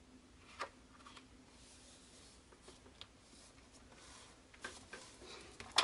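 Hands handling kraft cardstock and a squeeze bottle of wet glue: faint paper rubbing with a few soft clicks and taps, the sharpest one near the end.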